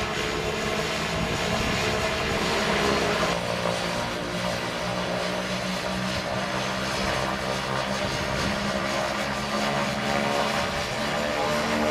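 Beechcraft A90 King Air's Pratt & Whitney Canada PT6A-21 turboprop engines running steadily on the ground, propeller spinning, a constant hiss and hum with no change in speed.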